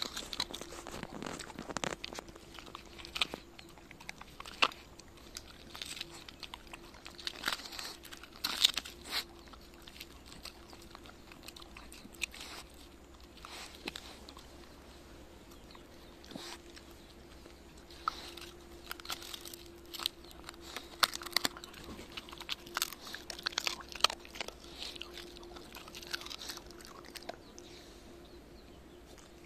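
Shiba Inu gnawing and crunching boiled chicken carcass bones left from making stock: sharp crunches at irregular intervals, with short quieter pauses between bites.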